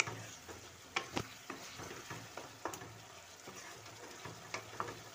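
Spatula stirring fried potato chunks through a thick spiced gravy in a pan, with irregular knocks and scrapes against the pan over a low sizzle. The masala is being fried down with the potatoes mixed in.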